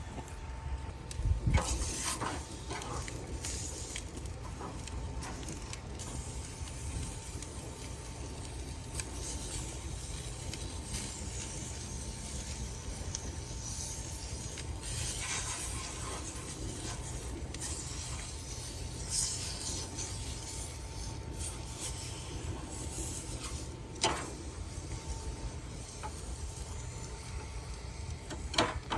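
Food sizzling steadily while it cooks, with occasional scrapes, clicks and knocks of a cooking utensil against the pan.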